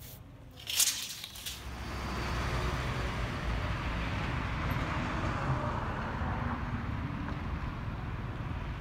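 A brief sharp noisy burst about a second in, then the steady sound of road traffic, cars driving along a town street, with a strong low rumble.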